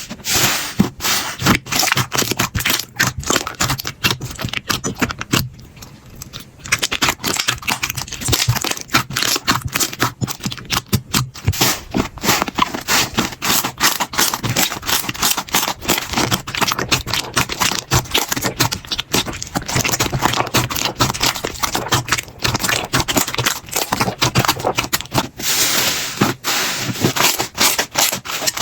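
Slime being squeezed, poked and stretched by hand, giving a dense run of wet crackles, clicks and small pops, with a brief lull about five and a half seconds in.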